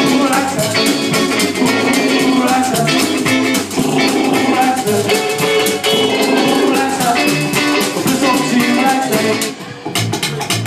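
Live rock and roll band playing an instrumental passage: hollow-body electric guitar over drums, upright bass and a scraped washboard, with a short break about nine and a half seconds in.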